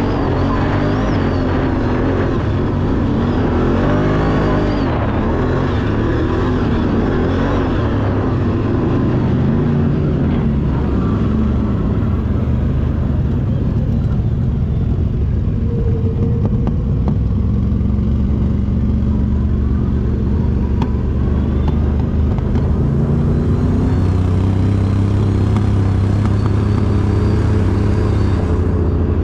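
Motor vehicle engine running loud, revving up and down in the first several seconds, then settling to a steadier, lower drone.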